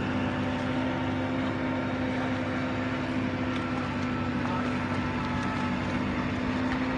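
Small engine running at a steady speed, a constant even drone with no change in pitch.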